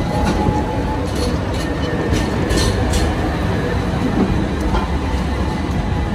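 Steady rumbling of a moving vehicle, with a few light clinks about a second to three seconds in.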